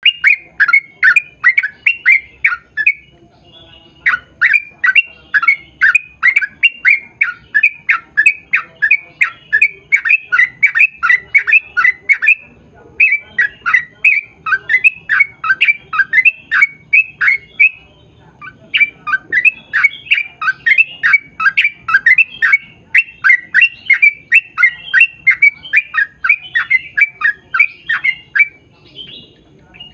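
Yellow-vented bulbul (trucukan) calling in a long rapid series of chattering notes, about three a second, each note dropping in pitch. The runs break off briefly a few times and then start again.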